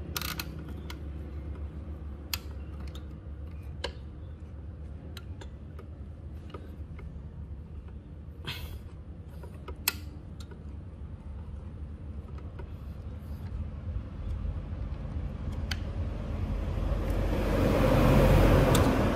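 Scattered sharp metal clicks of a homemade bolt-and-socket puller being screwed in to press the piston pin out of a scooter piston, over a steady low hum. Near the end a vehicle passes, its noise swelling, peaking and then fading.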